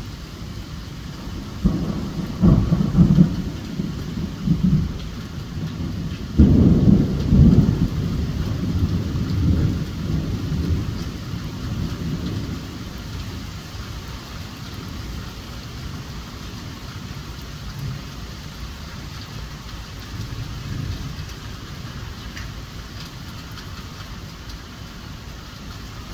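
Steady rain with thunder. A first peal rolls in about two seconds in, and a louder one comes about six seconds in and rumbles away over several seconds.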